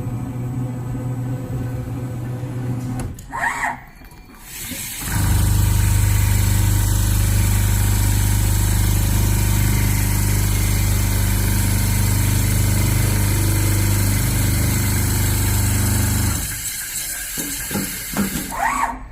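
Large CNC leather sewing machine running with a steady mechanical hum. A lighter hum comes first, then about five seconds in a louder, fuller running sound starts and holds steady before stopping near the end. Short chirps come twice.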